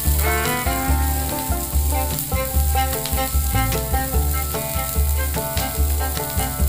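Chopped onions sizzling in hot oil in a non-stick pan as they are stirred with a wooden spatula, with background music and a steady bass beat running throughout.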